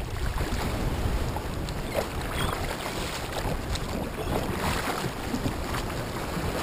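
Paddle strokes splashing and water sloshing along a sit-on-top kayak's hull in choppy water, with steady wind rumble on the microphone.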